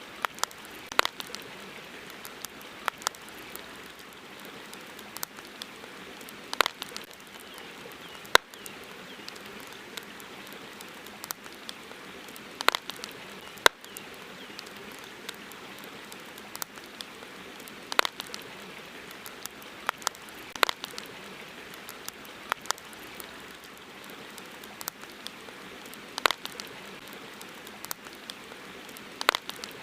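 Wood campfire crackling, with irregular sharp pops a second or two apart, over the steady wash of a river.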